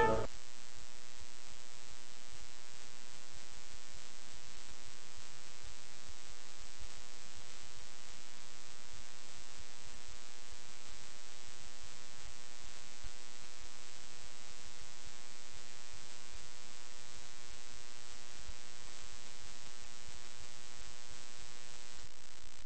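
Steady electrical hum with many overtones, unchanging in pitch and level, over faint hiss; it cuts off near the end, leaving only quieter hiss.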